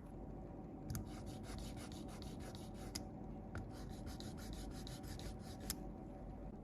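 Quick back-and-forth rubbing strokes of a hand tool on a small hard surface, about seven a second, in two runs of roughly two seconds each, with a few sharper ticks among them, the last one about five and a half seconds in.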